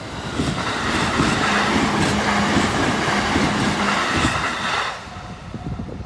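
Electric train on the JR Uchibo Line passing through a level crossing: a loud rush of wheel and running noise for about four and a half seconds, with a steady hum in the middle of the pass. The crossing's warning bell rings before the train and is heard again about five seconds in, as the train clears.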